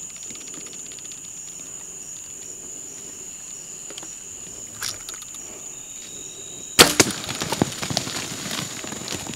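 Steady insect chorus at dusk; about seven seconds in, the sharp smack of a bow shot hitting a white-tailed buck, followed at once by the buck crashing off through the brush and leaves for about two seconds.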